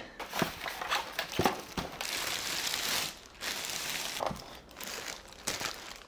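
A clear plastic packaging bag crinkling and rustling as it is handled and pulled off a boxed display piece, with styrofoam packing blocks rubbing and knocking.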